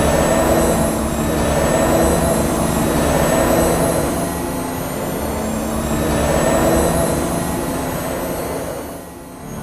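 Batpod engine sound effect: a steady, jet-like mechanical drone with held tones. It swells and eases, and dips briefly near the end.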